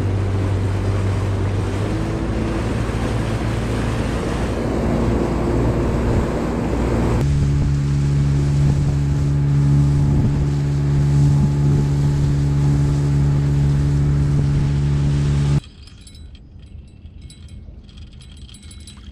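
Fishing boat's outboard motor running under way, with wind and water rush; the engine's tone steps up about seven seconds in and runs steadily until it cuts off abruptly about fifteen seconds in.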